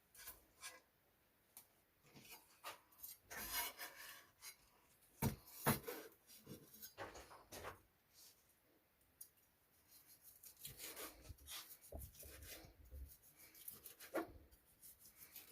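Utensils scraping and knocking on a plate in irregular strokes, as food is cut and served, with two sharper knocks about five seconds in.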